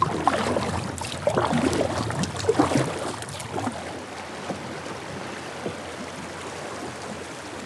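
Kayak paddle strokes dipping and splashing in the river for the first three or four seconds, then the steady rush of river current running over a riffle, with a couple of faint knocks.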